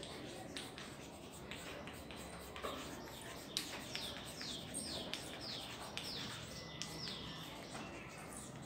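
White chalk tapping and scratching on a blackboard as letters are written, in short sharp strokes. From about a third of the way in, a bird gives a run of quick falling chirps, about two a second.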